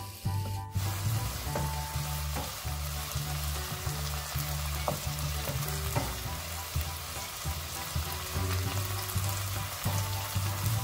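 Onions, bell peppers and leeks sizzling as they are stir-fried in a nonstick wok, the sizzle starting suddenly about a second in. A wooden spoon scrapes and now and then taps against the pan as the vegetables are stirred.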